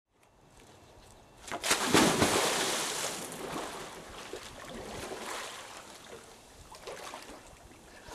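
Water churning and splashing as air bubbles boil up to the surface beside a floating home's floats during underwater work. It starts suddenly about a second and a half in, is loudest around two seconds, then eases to a steadier churning.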